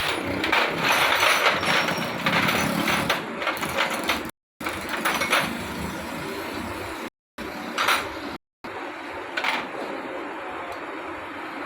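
Hand tools and loose metal engine parts clinking, knocking and scraping during the strip-down of a motorcycle engine, busiest in the first few seconds. The sound drops out abruptly three times.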